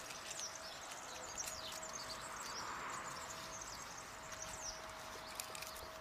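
Small birds chirping faintly from a forest nature video played through a TV's speakers, a scatter of short high chirps over a steady hiss.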